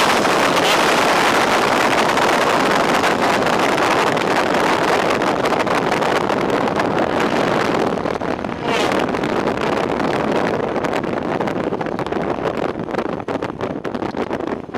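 Wind rushing over the kart's onboard camera microphone as the superkart rolls along with no engine note heard. The rush eases gradually and grows more uneven as the kart slows.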